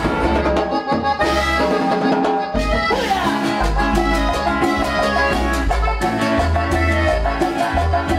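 Cumbia band playing: accordion and keyboard over a bass line and percussion with a steady beat.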